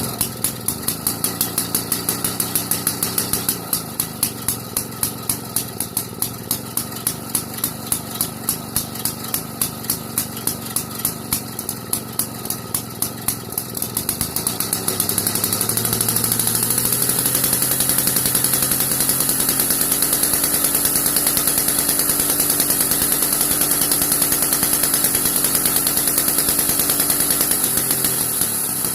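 AKCO 306 two-man chainsaw engine running. It first idles unevenly with distinct beats about three a second. About fourteen seconds in it speeds up into a louder, steady faster run, easing off a little near the end.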